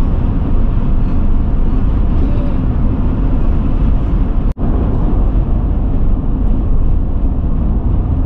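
Steady road and engine noise inside a moving vehicle's cabin at highway speed, with a brief dropout a little past the middle.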